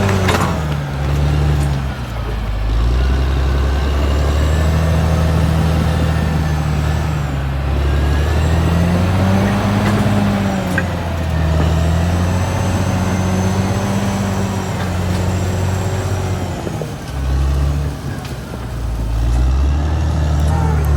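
Caterpillar D6R XL bulldozer's diesel engine running under changing load, its pitch rising and falling. It sags briefly twice near the end. A faint high whine sweeps up and down above it.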